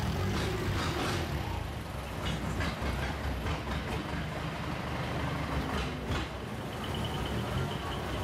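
Long-tail boat engine running steadily, a low-pitched drone with occasional short knocks.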